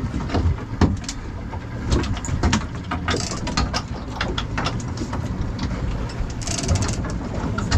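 Big-game fishing reel clicking irregularly while a marlin is fought on the line, over the steady low running of the boat's engine; two short hissing patches come about three and six and a half seconds in.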